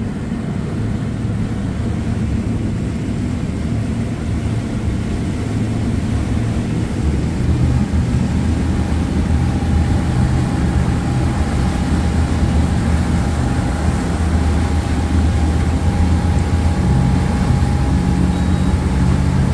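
Inboard 5.7-litre Chevrolet V8 of a ski boat running under way at steady speed, with the wake churning behind the stern; it grows gradually a little louder.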